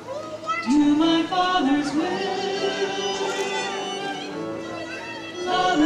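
Live church music for the offertory: singing over instrumental accompaniment, with held notes and short glides in pitch.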